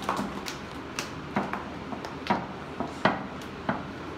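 Scattered single hand claps from a few small children, dying out at irregular intervals after a round of applause.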